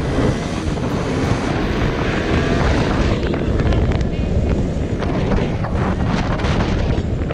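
KTM RC sport motorcycle being ridden on the road: engine and road noise under steady wind buffeting on the microphone.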